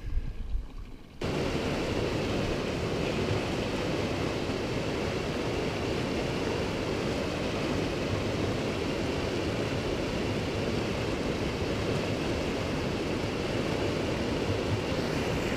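Steady rush of a fast, silty mountain river running over stones and boulders, cutting in abruptly about a second in.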